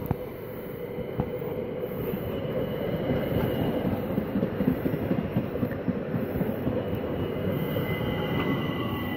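ÖBB Talent electric multiple unit running in and passing close by, its rumble swelling as it nears. A thin high squeal joins near the end as it slows into the station.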